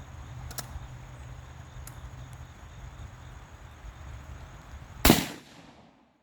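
A single loud gunshot about five seconds in, with a short echo trailing off after it, over steady outdoor background noise.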